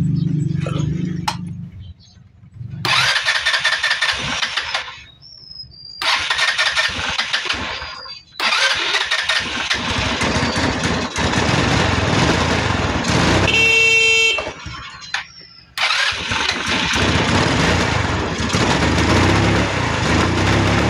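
Small motorcycle engine running and being revved, dropping out and picking up again several times: misfiring and hard starting from a carbon-fouled spark plug in an engine that burns oil. A brief horn-like tone sounds about two-thirds of the way through.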